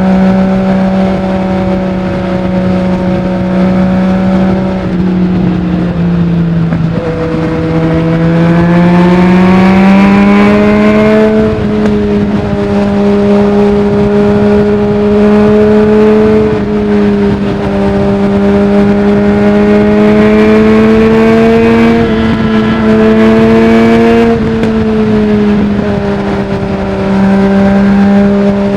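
2020 Yamaha MT-09's inline three-cylinder engine through a full Akrapovic exhaust without its dB killer, running under way at a steady pitch for long stretches. About a quarter of the way in the note dips, then climbs steadily as the bike accelerates, settling again with a few small shifts of throttle.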